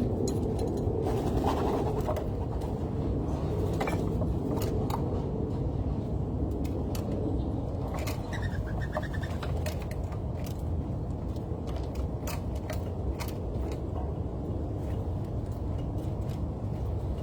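Scattered sharp taps and clicks over a steady low rumble, with a short trilled bird call about eight seconds in.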